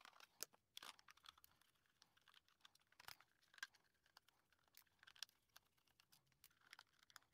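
Mostly near silence with scattered faint clicks and ticks: a small screwdriver turning screws out of a plastic battery LED puck light and the plastic housing being handled.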